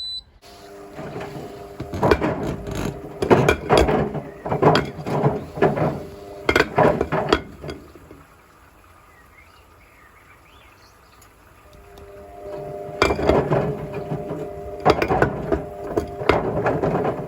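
Bricks tumbling in the drum of a Hotpoint WMFUG742 washing machine, knocking and clattering irregularly against the drum and door glass over the hum of the drum motor. The drum stops for about four seconds midway, then turns again with the same knocking.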